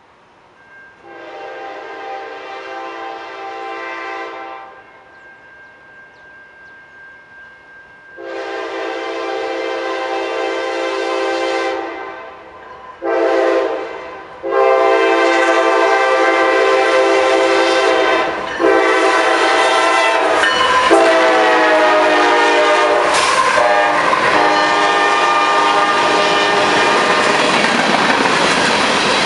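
Freight locomotive's multi-chime air horn sounding the grade-crossing signal, long, long, short, long, the last blast held and sagging in pitch as the locomotive passes. Then the freight train's hopper cars roll by with the clickety-clack of wheels over the rail joints.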